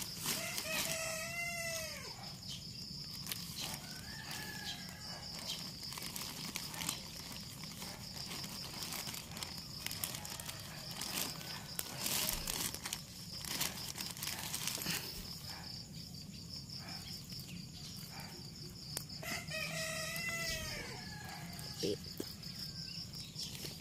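A rooster crowing twice, once about a second in and again around twenty seconds in, each crow rising and then falling in pitch. Under it runs a steady, pulsing, high insect trill, with scattered light rustles and clicks.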